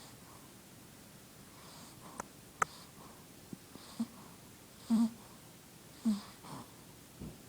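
A sleeping shih tzu snoring: soft breaths about once a second, broken by short, louder snores, the strongest about five and six seconds in.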